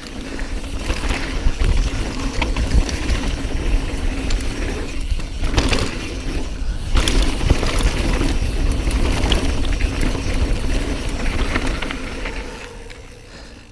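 Mountain bike rattling down a rough trail over brake bumps, with wind on the microphone and scattered knocks from the tyres and frame. It quietens near the end as the bike slows.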